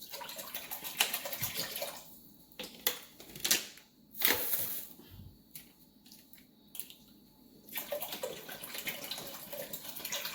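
Water running into a cooking pot of peas and coconut milk. It stops about two seconds in, a few clicks and knocks follow, and it runs again near the end.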